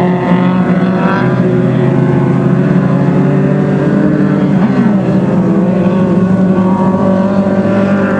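Race car engines running on an ice track, over a steady engine drone, with some revving rising in pitch about a second in.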